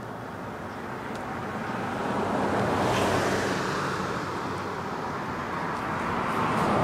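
Cars passing on the street: one swells up and goes by about three seconds in, and another approaches near the end.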